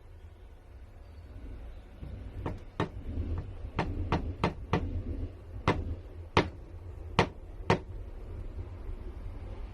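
About ten sharp taps or knocks, unevenly spaced over some five seconds, over a low steady rumble.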